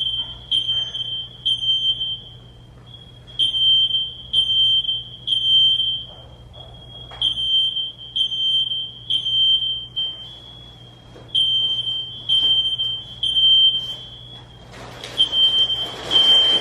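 Smoke alarm beeping in its high, piercing tone, in repeated groups of three beeps with a short pause between groups: the standard three-pulse fire-alarm signal. A burst of rustling handling noise comes near the end.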